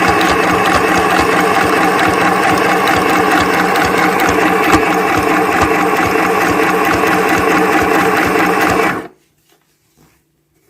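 Singer M1005 electric sewing machine running, stitching a picot stitch with fast, even needle strokes over the motor's steady whir. It stops abruptly about nine seconds in.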